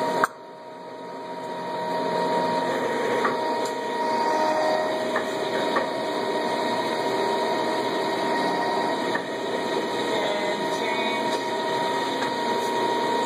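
Lodge & Shipley engine lathe running, a steady mechanical hum with a constant gear whine, and a few light clicks. Near the start the sound drops off suddenly and then builds back up over about two seconds.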